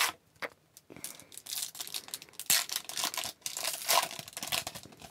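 A foil hockey-card pack wrapper crinkling and tearing as the pack is opened, with a few sharp clicks and then dense crackling.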